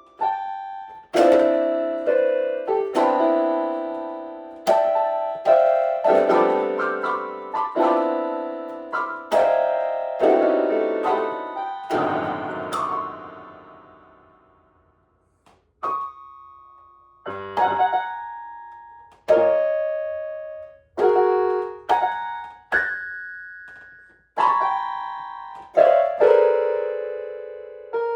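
Solo piano music: slow chords and single notes, each struck and left to ring and fade. About halfway through, the playing dies away almost to silence, then resumes with sparser notes and chords.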